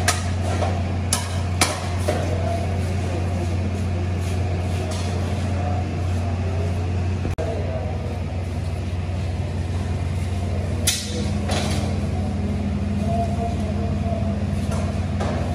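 Kitchen noise from large cooking pots: a steady low hum with a few sharp clanks of metal ladles against the big rice pots, and some background voices. The hum shifts abruptly about seven seconds in.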